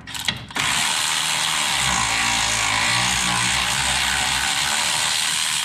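Cordless electric ratchet running steadily, spinning a binding nut off a bolt. It starts after a few short clicks about half a second in and cuts off near the end.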